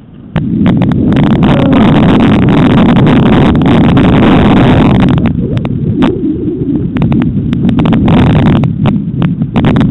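Loud rumbling wind noise on the microphone, much louder from about half a second to five seconds in, with scattered sharp clicks and knocks from the moving camera.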